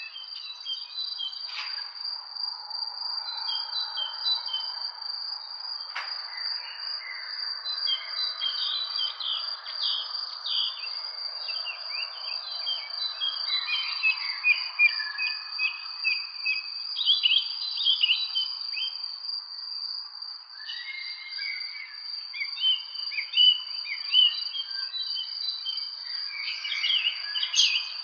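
Outdoor ambience: many birds chirping and twittering, with a short lull about twenty seconds in, over a steady high-pitched insect trill and a soft hiss.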